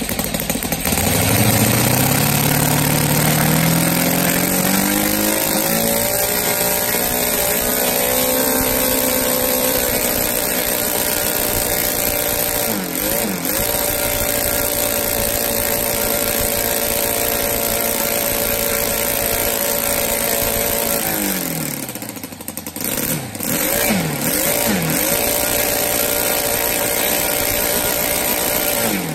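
Saito FA-182T twin-cylinder four-stroke model engine, converted to spark ignition, driving an 18x6 propeller. It revs up from idle in a rising whine to full throttle and holds there steadily. About two-thirds through it is throttled back, blipped up and down a few times, run up to full again, and throttled down near the end.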